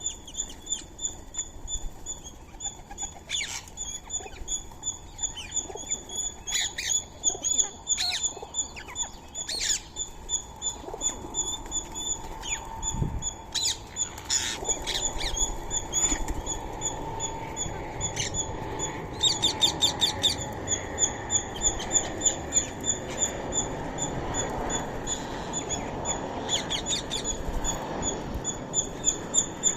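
Birds calling: a steady run of short, high chirps repeated several times a second, with louder harsh squawks of Indian ringneck parrots breaking in now and then. Two fast rattling runs of calls come about two-thirds of the way through and again near the end.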